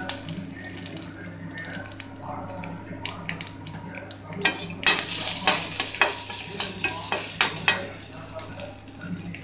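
Spices and dried red chillies sizzling in hot oil in an iron kadai, the tempering for sambar, while a perforated metal skimmer scrapes and knocks against the pan. The knocks come thickest from about four and a half to eight seconds in.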